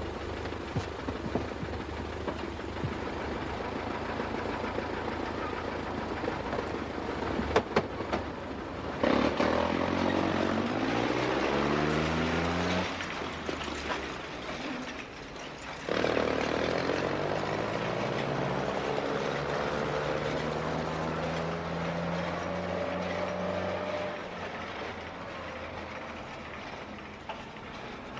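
Canvas-topped military truck's engine running and pulling away, its pitch climbing as it accelerates through the gears, with a second, slower climb starting about sixteen seconds in before it eases off.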